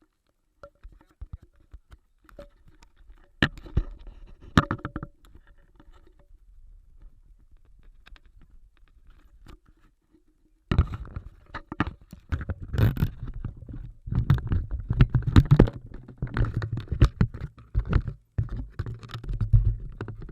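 Rain pattering and buffeting on the camera microphone, with scattered knocks: faint and sparse at first, then from about halfway through a dense, irregular low rumble with sharp knocks.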